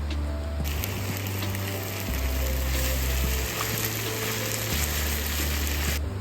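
Food sizzling in a hot pan: a dense hiss that starts suddenly about a second in and cuts off just before the end, over background music with a steady bass line.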